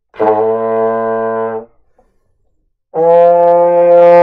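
Trombone playing a beginner's first held notes: a steady low note for about a second and a half, then after a short pause a louder, higher note held steady.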